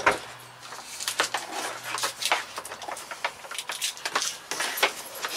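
Handling noises of a shop vacuum being set up on a plywood top: a sharp knock at the start, then irregular clicks, taps and rustles as its hose and power cord are moved and uncoiled.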